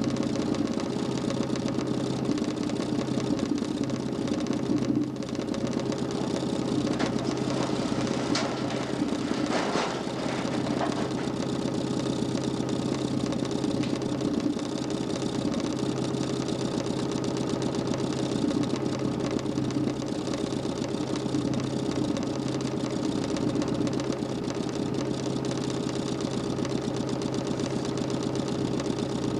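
DC motor spinning the 40 cm plywood Nipkow disc of a homemade mechanical television, running with a steady, even hum.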